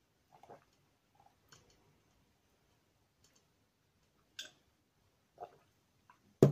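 A person drinking cider from a glass: faint swallows and small mouth and glass clicks, spaced out, with a sharper thump near the end.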